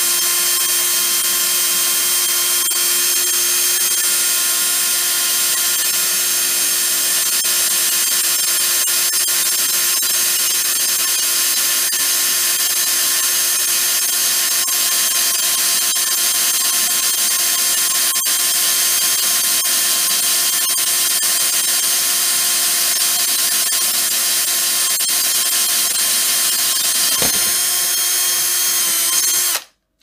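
Electric drill with a 5 mm wood bit running at a steady high speed, boring a hole through a lacquered kitchen drawer front. It is a hard bore; the drill winds down and stops just before the end.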